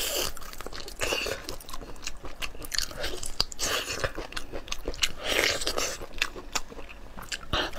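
A person biting into and chewing lobster meat close to a clip-on microphone, a steady run of small mouth clicks and smacks.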